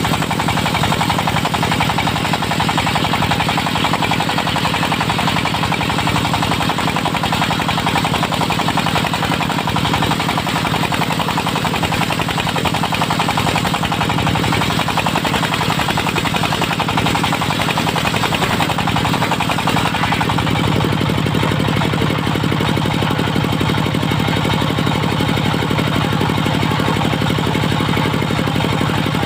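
Diesel engine driving a circular saw rig, running with a fast, steady knocking beat. About twenty seconds in the sound turns lower and smoother.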